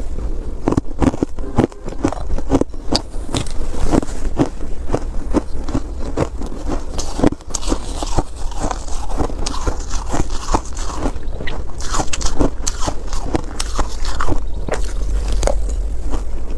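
Close-up crunching and biting of mouthfuls of crumbly ice, with a metal spoon scraping in a metal pot. A dense run of sharp crunches goes on throughout over a steady low rumble.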